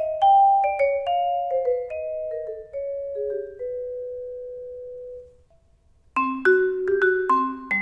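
Vibraphone struck with yarn mallets: a falling melody on the blue-barred Malletech Omega Vibe, its notes ringing over one another and ending on a long held note that is cut off about five seconds in. After a short pause, a rhythmic phrase of lower chords starts on the gold-barred Marimba One Vibe.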